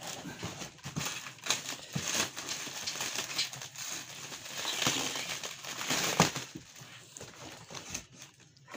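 Packaging being pulled and torn open by hand: irregular crinkling, rustling and crackling with scattered knocks, as a fiddly box is worked open.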